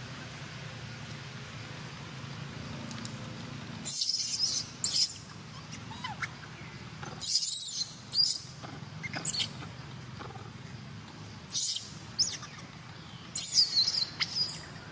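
Infant long-tailed macaque screaming in a string of short, very high-pitched, wavering screeches, starting about four seconds in and coming six or seven times with pauses between.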